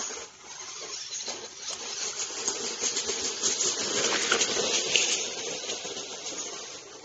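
Radio-controlled 4x4 truck driving over dirt strewn with dry leaves and seed pods, tyres crunching over the debris as its motor runs. It grows louder as it passes close by about four seconds in, then fades.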